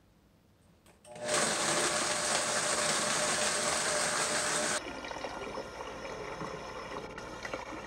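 Near silence, then about a second in a loud, steady rushing noise with a faint hum starts and cuts off abruptly about halfway through. A quieter steady sound of tap water running from a faucet into a baby bath follows.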